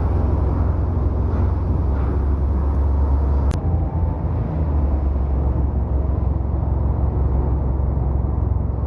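Steady low rumble of shipboard machinery running, with one sharp click about three and a half seconds in.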